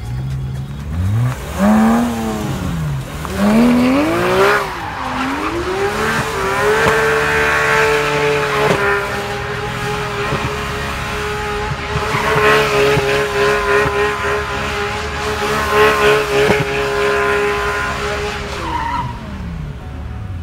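A sports car engine is revved up and down twice, then held at high revs for about twelve seconds while the spinning rear tyres squeal through a smoky donut burnout. The revs drop near the end.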